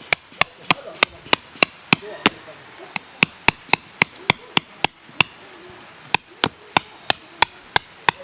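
Hammer blows on metal, most likely a steel tent stake being driven into the ground: quick, even strikes about three a second, each with a short metallic ring, in three runs with two brief pauses.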